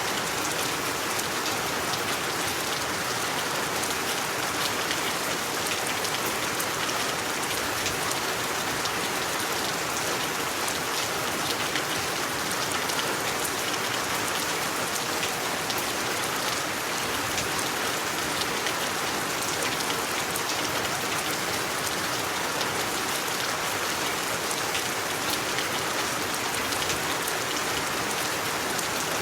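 Steady rain falling: an even, unbroken hiss with a fine patter of individual drops.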